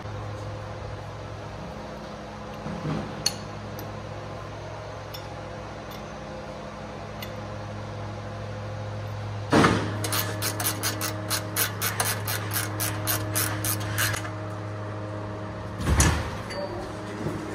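Hand tools working on hydraulic fittings, over a steady low hum: a sharp metallic clatter about ten seconds in, then a rapid run of metallic clicks, about four a second, lasting some four seconds. Another clatter comes near the end.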